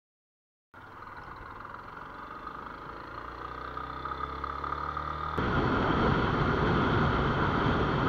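Motorcycle engine running while riding, its pitch slowly rising as it picks up speed. About five seconds in, the sound jumps abruptly louder and noisier with engine and rushing road noise, then cuts off suddenly near the end.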